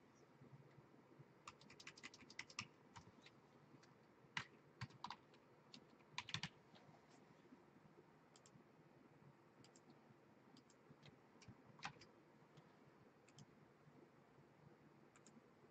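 Faint computer keyboard typing: short flurries of key clicks in the first six seconds or so, then a few scattered clicks.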